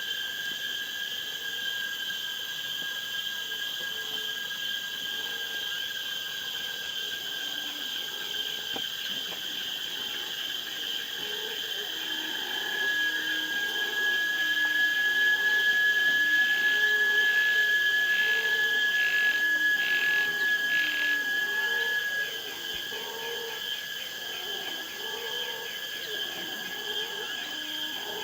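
Rainforest insects droning in steady high tones. One shrill whine swells louder about halfway through, holds for about ten seconds, then drops back. Short lower calls come and go underneath.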